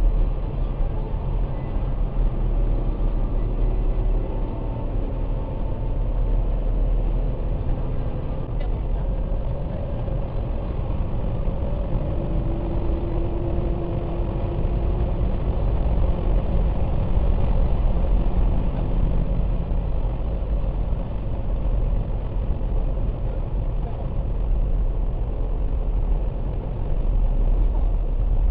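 Mercedes-Benz SLS AMG's V8 engine idling with a steady low rumble, no clear revs.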